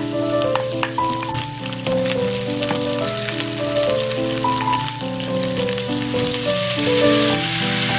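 Sliced green onions, then diced chicken, frying in hot cooking oil in a wok: a steady sizzle with many small crackles. Light background music with a simple melody plays over it.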